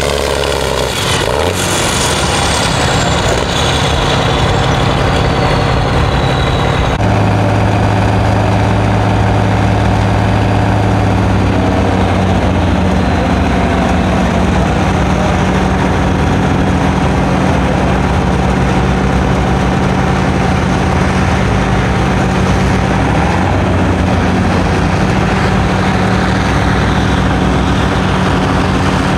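Diesel tractor engine working hard at full throttle as a red International tractor drags the weight-transfer sled, with a high whine that falls steadily in pitch and cuts off about seven seconds in. After that a steady deep engine drone holds.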